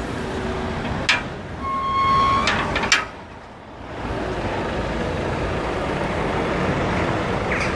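Steady road-traffic noise from passing cars, starting up about four seconds in. Before it come two sharp clicks about two seconds apart, with a short steady beep between them.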